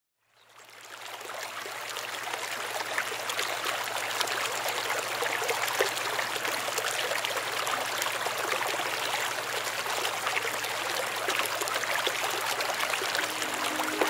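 Water pouring from a pipe into a concrete irrigation basin: a steady splashing rush that fades in at the start, with a low steady hum beneath it.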